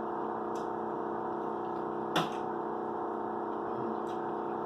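Video game background audio: a steady drone of several held tones, with one sharp click about two seconds in and a couple of fainter ticks.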